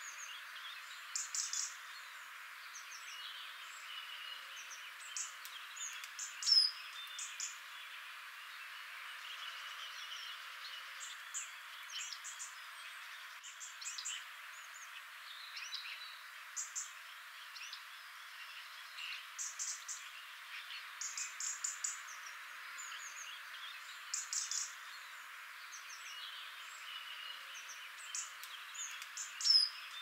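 Garden birdsong: several small birds singing, with short, high chirping phrases every few seconds over a steady background hiss.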